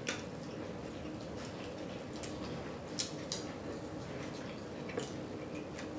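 Close-up mouth sounds of someone chewing a Whopper burger, with wet lip smacks and mouth clicks. The sharpest smacks come just after the start, twice around three seconds in and once around five seconds, over a faint steady hum.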